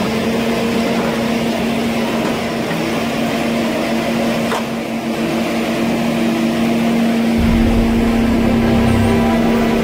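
Forestry harvester's diesel engine running with a steady hum; a deeper rumble joins about seven seconds in, as the engine takes on more load.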